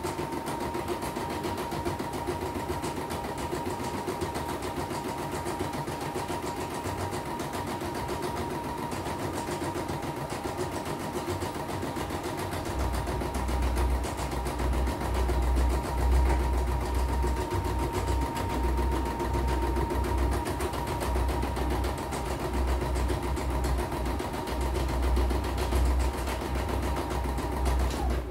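CNY portable computerized embroidery machine stitching on a test run: a steady motor whine with rapid needle strokes, which stops near the end. A low rumble joins about halfway through. The machine works as it should.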